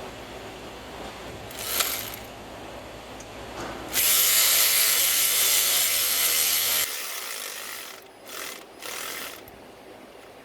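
A power tool runs a stud into the A/C compressor mount, with a steady run of about three seconds starting around four seconds in. A brief burst comes earlier, and two short blips follow near the end.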